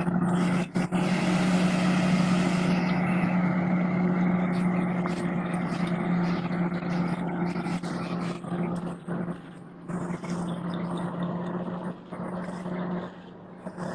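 A heavy farm machine's engine running steadily with a constant hum, which drops away about 13 seconds in.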